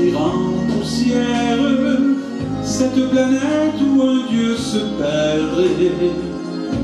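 A man singing a French chanson into a handheld microphone over instrumental accompaniment with a steady bass line.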